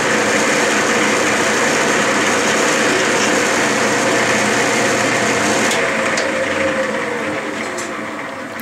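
Clausing metal lathe running in reverse under power, with its motor and gear train making a steady hum during a threading pass on a Delrin rod. About six seconds in it is switched off, and the spindle and chuck coast down, the hum falling in pitch and fading.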